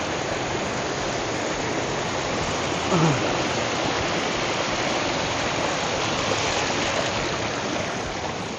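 Steady rush of flowing stream water, with a brief short vocal sound from a person about three seconds in.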